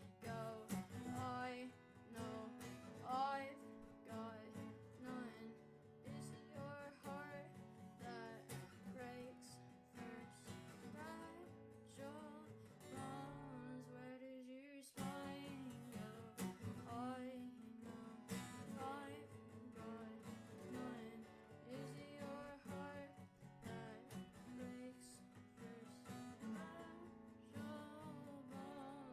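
Acoustic guitar music, plucked and strummed, with a brief break about fifteen seconds in.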